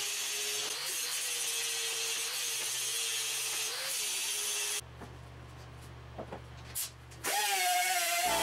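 Angle grinder grinding down welded steel plate corners, a steady harsh grinding noise over the motor's whine. It cuts off abruptly about five seconds in, leaving a low hum and a few faint clicks. Background music comes in near the end.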